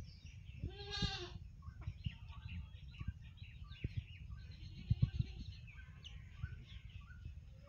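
A single drawn-out animal call about a second in, rising then falling slightly in pitch. Scattered high chirps from small birds or chicks run throughout over a low rumble with occasional thumps.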